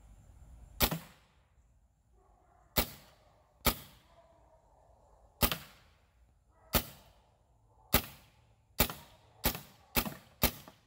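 SMG .22 PCP air rifle firing single shots: ten sharp reports, irregularly spaced and coming quicker toward the end.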